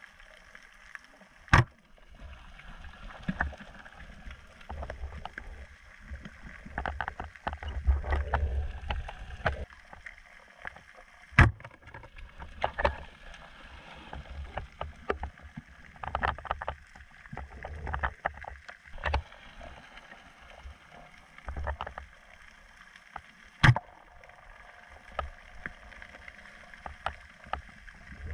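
Underwater sound picked up by a submerged camera while spearfishing: water rushing and sloshing past the camera in swells, with scattered crackling and three sharp loud clicks or knocks, about ten seconds apart.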